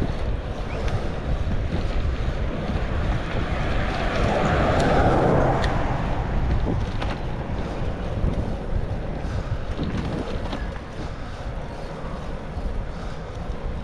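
Wind rushing over the microphone of a bicycle being ridden along an asphalt road, with a steady low rumble. A louder swell rises and fades about four to six seconds in.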